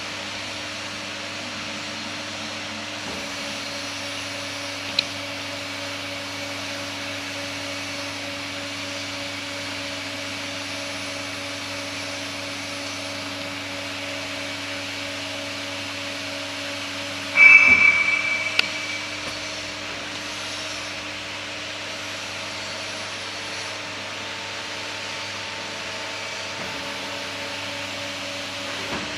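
CNC aluminium profile arc-bending machine running with a steady mechanical hum. About two-thirds of the way through comes a sharp metallic clank that rings briefly, and a single short tick comes about five seconds in.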